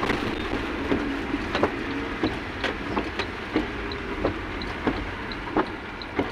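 Vehicle driving, heard from inside the cab: a steady engine and road rumble, with repeated sharp clicks and rattles and a faint, fast, regular high ticking.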